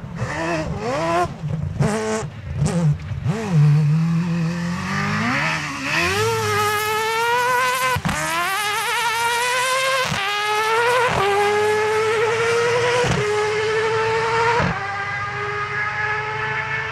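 Rally car engine at full throttle. The revs flare and waver at first, then the car accelerates hard up through the gears, the pitch climbing and dropping sharply at each of about five quick upshifts.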